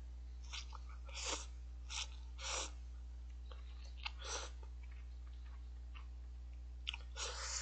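Instant cup-ramen noodles being slurped close to the microphone: about half a dozen short slurps with pauses between them, the longest near the end.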